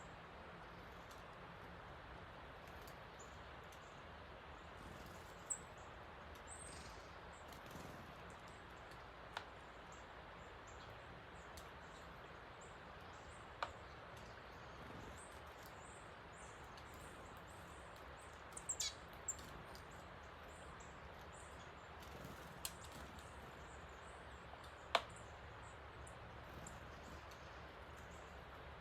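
Steady rushing of a creek running high after heavy rain, with scattered short, sharp bird chirps and ticks over it, the loudest near the end.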